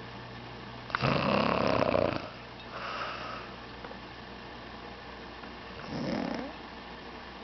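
A sleeping woman snoring: one loud, rattling snore about a second in that lasts about a second, a softer breath out shortly after, and a shorter, quieter snore near the end.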